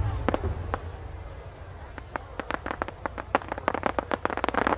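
Fireworks: the low rumbling tail of a shell burst, then from about two seconds in many sharp crackling pops that come thicker near the end, typical of crackling stars.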